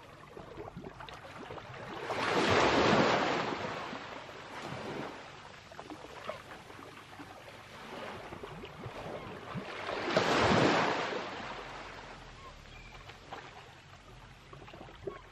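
Small waves washing up a sandy shore and drawing back. Two gentle swells of surf, one a couple of seconds in and another about ten seconds in, each building and fading over a few seconds.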